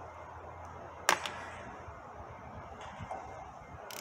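Steering wheel puller and its long bolts being fitted onto a transmission's synchro hub: one sharp click about a second in, a fainter one right after, and small clicks later, over a low steady hum.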